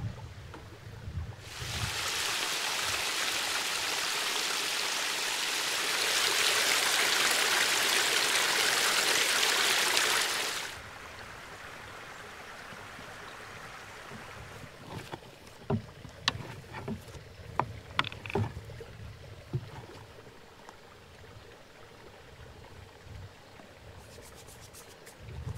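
Water running in a steady rushing stream. It gets louder about halfway through and stops suddenly, then a few light clicks and knocks follow.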